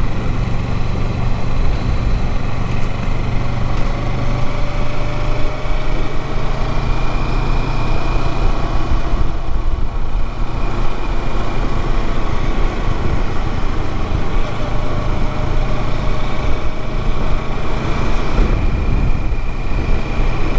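Motorcycle engine running steadily at cruising speed, heard from the bike while riding, with a steady rushing noise over it.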